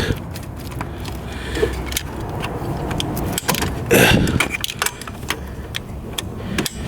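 Irregular small metallic clicks and clinks of hands and tools working a hose clamp onto a thermostat housing hose, over a steady low hum.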